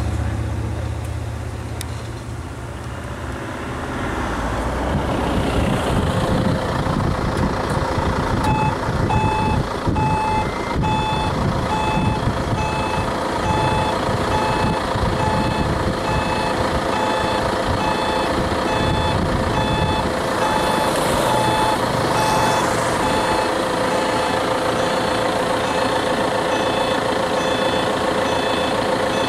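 A motor vehicle's engine running, with a reversing alarm beeping steadily at an even pace from about eight seconds in.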